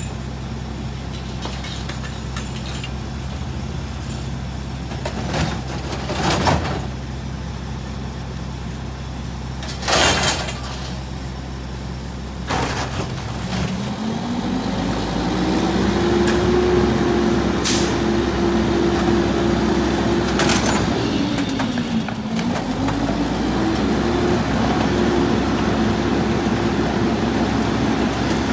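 Mack LE garbage truck's diesel engine idling, with several loud clanks and bangs as bulk items are dropped into the McNeilus rear loader's steel hopper. About halfway through, the engine speeds up and holds at a higher pitch while the hydraulic packer cycles. Its pitch dips briefly near the end and then rises again.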